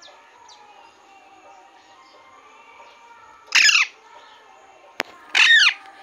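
Alexandrine parakeet giving two loud calls about two seconds apart, each sliding down in pitch, with a single sharp click between them.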